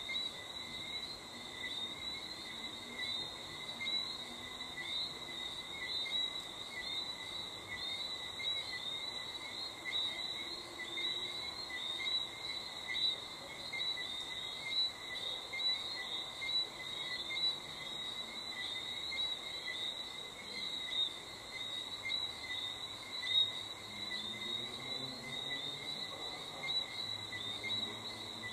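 Crickets chirping in a steady, unbroken high-pitched trill, with frogs calling faintly underneath.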